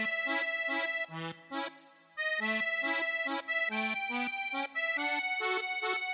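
Instrumental background music in short bouncy phrases, with a brief break about a second in.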